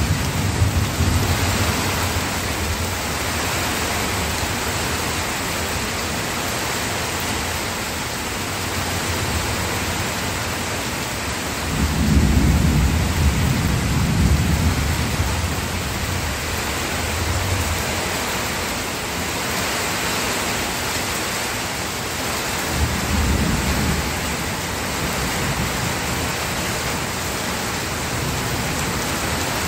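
Steady rain with rolling thunder: a low rumble about a second in, a louder, longer roll about twelve seconds in, and a shorter rumble later on.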